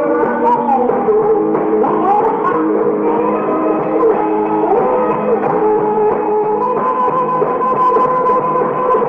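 Live rock and roll band playing: electric guitar over bass and drums, on a muffled recording with no treble.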